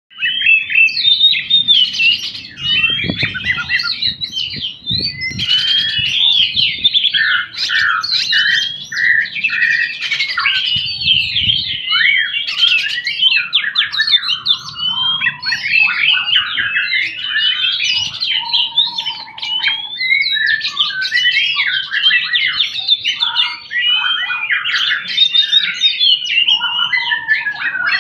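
Oriental magpie-robin (kacer) singing its full song: a continuous stream of quick, varied whistled notes sweeping up and down, with a few lower phrases now and then.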